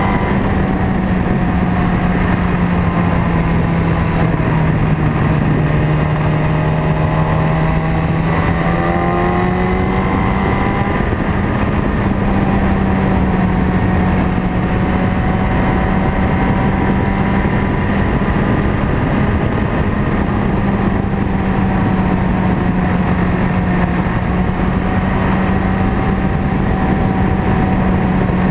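A vehicle's engine running steadily under a haze of wind and road noise while climbing. Its pitch sags a few seconds in and rises again at about ten seconds, then holds steady.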